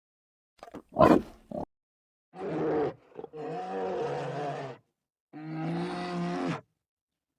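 A large animal calling: a short, loud harsh burst about a second in, then three long drawn-out calls of steady pitch.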